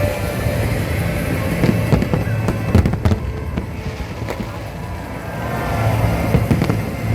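Fireworks display bursting: a steady low rumble with sharp bangs about three seconds in and a quick run of bangs right at the end.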